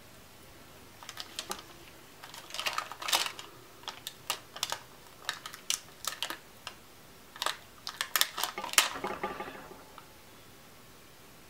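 Irregular light clicks and taps of plastic buttons being handled and pressed onto cardstock, mixed with the short crackle of adhesive dots being peeled off their backing roll. The clicking starts about a second in and stops a little before the end.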